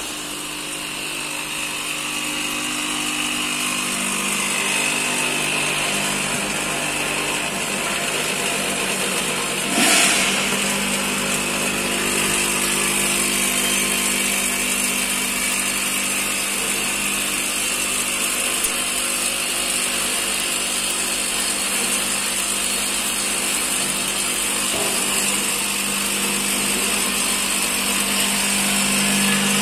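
Popcorn packing line running: a bucket elevator and vertical packing machine give a steady mechanical hum with high whines, growing slowly louder. One sharp knock about ten seconds in.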